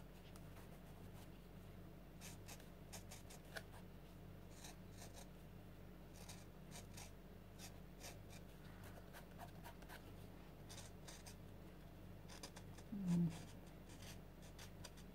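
A chisel-tip highlighter marker scratching faintly over gesso-textured paper in short colouring strokes, over a steady low hum. About 13 s in there is a brief low hum from a voice.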